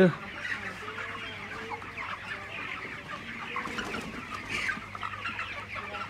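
A large flock of broiler chickens in a shed, many birds clucking and chirping at once in a continuous busy chatter.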